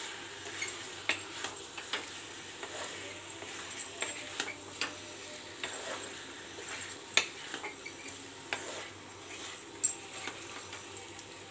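Boiled potato chunks being stirred into masala in a hot pan: a steady sizzle of oil under irregular scrapes and knocks of the spatula against the pan, with a sharper knock about 7 seconds in and another near the end.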